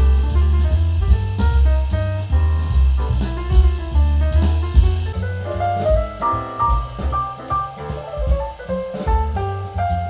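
Instrumental jazz with drum kit, double bass and piano, played back through a budget loudspeaker under test, with strong low bass.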